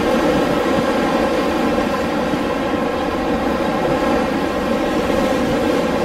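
Winter wind blowing in a steady, unbroken low rush, with no gusts or breaks.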